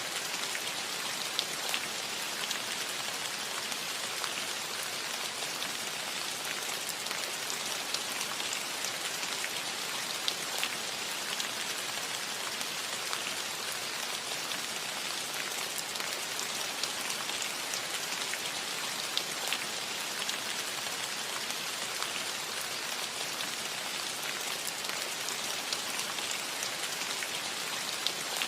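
Steady rain falling on a metal roof: a dense, even patter with individual drops ticking sharply over it.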